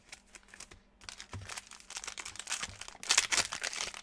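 Foil wrapper of a trading-card retail pack crinkling and tearing as it is ripped open by hand. The sound starts about a second in as dense crackling and is loudest around three seconds in.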